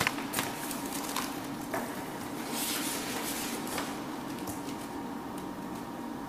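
Paper rustling and a page being turned, with a few light clicks and taps on the table, over a steady low room hum.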